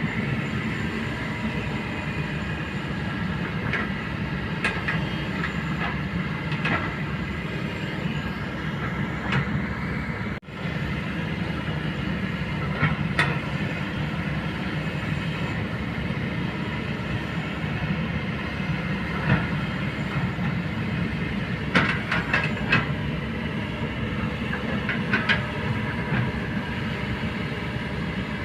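Kobelco hydraulic excavator's diesel engine running steadily, with sharp metallic clanks from the machine working now and then, a cluster of them near the end.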